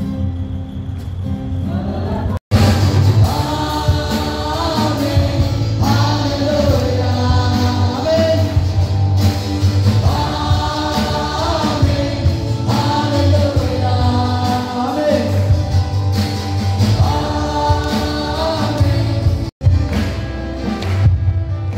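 Live gospel band performing: a group of singers in phrases over guitar and drums, amplified in a large hall. The sound drops out abruptly for an instant twice, about two seconds in and near the end.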